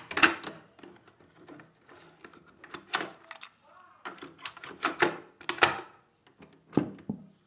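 Mechanical clicks and clunks of an ITT Touring 120 radio-cassette recorder's piano-key cassette buttons and slide switches being pressed and flipped, a string of separate sharp clicks spread irregularly across a few seconds.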